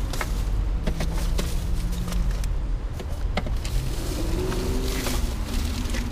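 Plastic trash bags rustling and a reacher-grabber tool clicking as a heavy bagged plastic item is dragged up out of a metal dumpster, over a steady low rumble.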